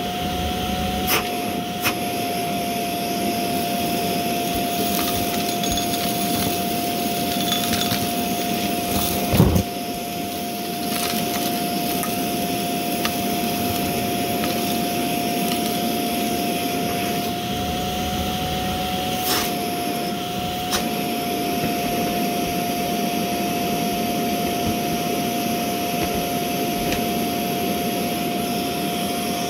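Shark Navigator upright vacuum running with a steady whine over the rush of airflow, with a few sharp clicks and one louder knock about nine and a half seconds in as debris is sucked up.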